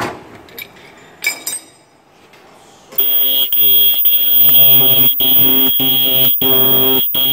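A couple of sharp metal clinks from a spanner on the horn assembly. Then, about three seconds in, a 20 kHz ultrasonic welding machine gives a loud, steady, high buzzing tone while its test button is held, broken by a few brief dropouts.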